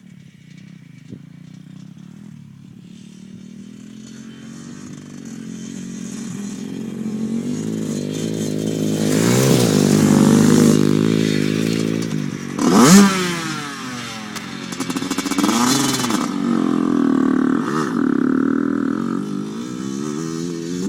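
Dirt bike engine getting steadily louder as it comes closer, then revving hard with a sharp rise and fall in pitch about two-thirds through, followed by a few more rev surges.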